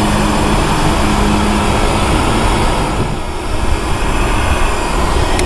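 Handheld electric heat gun blowing hot air onto a vinyl sticker to soften its adhesive: a steady whoosh of the fan with a faint motor hum, and a click near the end.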